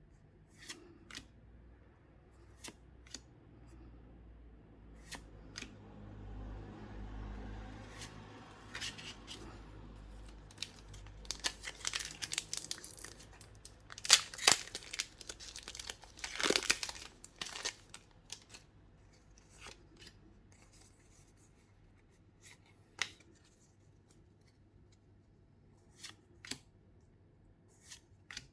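Pokémon card boxes and packs being opened by hand: light clicks and rustling of cardboard and wrapper, then from about twelve seconds in several seconds of loud tearing and crinkling of packaging, then back to scattered light handling clicks.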